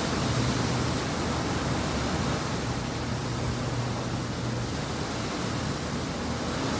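Steady hiss with a low hum underneath: room and recording background noise, with no distinct event.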